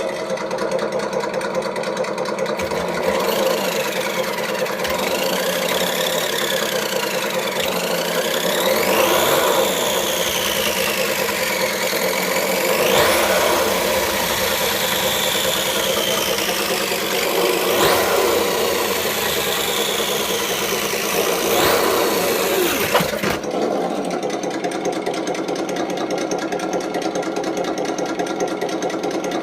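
ESS-One Plus engine sound simulator on a JLB Cheetah RC car, playing a simulated engine through its speaker. It runs at a steady idle, is revved up and down over and over with a high whine that rises and falls with each rev, then settles back to idle a few seconds before the end.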